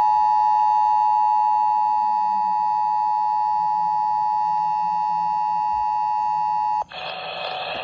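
Emergency Alert System attention signal: the steady two-tone alert tone (853 and 960 Hz) that opens an EAS message. It cuts off abruptly near the end and a hiss takes its place.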